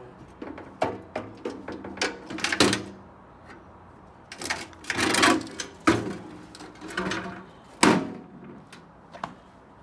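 Metal knocks, clanks and scrapes as a magnetron is worked at to free it from a microwave's steel frame, where a screw holding it won't release. Irregular sharp knocks, a longer rasping scrape about five seconds in, and the loudest knock nearly eight seconds in.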